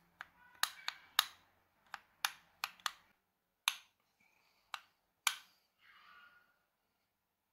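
Steel shackle of a rusty padlock jiggled and pulled against the lock body, clicking sharply about a dozen times at uneven intervals, then a brief faint scrape; the shackle is still stuck.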